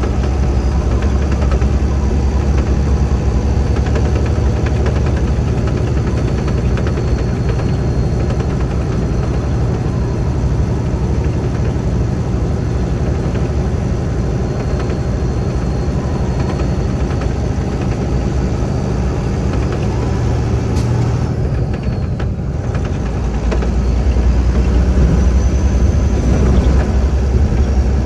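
Semi-truck diesel engine running with a steady low drone, heard from inside the cab; the level swells slightly near the end.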